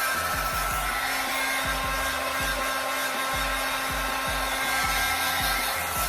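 Handheld hair dryer blowing steadily, drying freeze spray on a wig's perimeter, with music and a heavy bass beat underneath.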